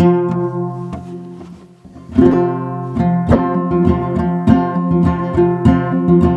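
Gourd banjo played in a low gCGCC-style tuning: a plucked chord rings out and fades away, then about two seconds in a steady run of plucked notes picks up again.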